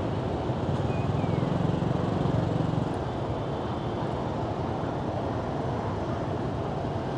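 Street traffic at a city intersection: motorbike and car engines running and passing in a steady wash of noise. A low engine drone swells for a couple of seconds near the start.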